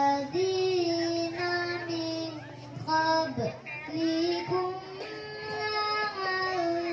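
A young girl reciting the Qur'an in melodic tilawah style into a handheld microphone, holding long ornamented notes with a brief pause for breath about halfway.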